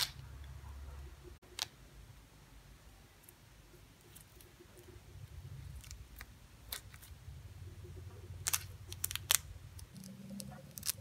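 Ripe pineapple being pulled apart by hand, fruitlets snapping and tearing away from the core in sharp, scattered clicks, with a quick cluster of them near the end, over a low rumble of the fruit being handled.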